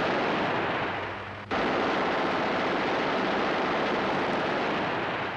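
Thompson submachine gun firing long continuous bursts, a dense rattle that drops back about a second in, starts again suddenly at about a second and a half, and fades near the end.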